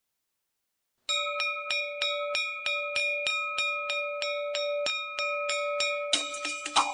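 A bell rung over and over, about three strokes a second, its tone ringing on between strokes. Near the end the strokes turn into a faster jangle, then the sound cuts off.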